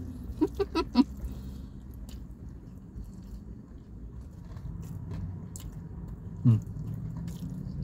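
Chewing and mouth sounds of people eating palabok noodles, with soft scattered clicks, over a steady low hum. A quick run of four short vocal sounds about half a second in, and one short falling 'mm' near the end.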